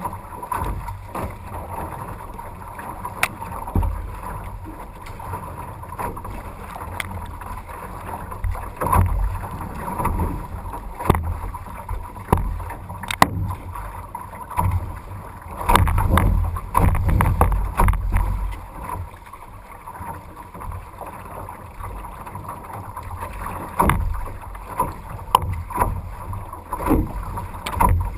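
Canoe being paddled through choppy, windy water: gusts of wind rumble on the microphone, swelling strongest just past the middle, while water splashes against the hull and sharp knocks come now and then.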